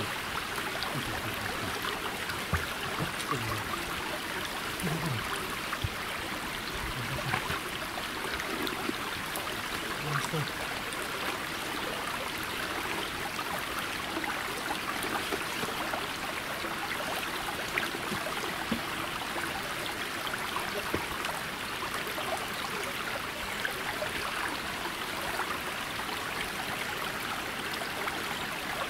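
A steady rush of running or falling water, even and unbroken, with faint distant voices in the first few seconds.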